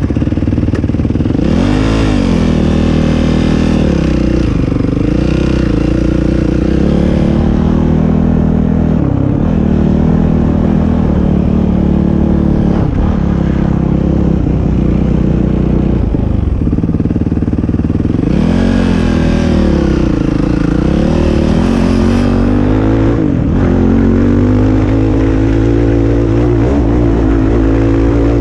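ATV engine running under way, revving up and easing off again and again as the throttle is worked, its pitch rising and falling several times.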